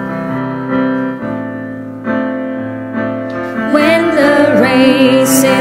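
Piano playing held chords in the pause between the lines of a hymn, then a group of voices starts singing again about three and a half seconds in.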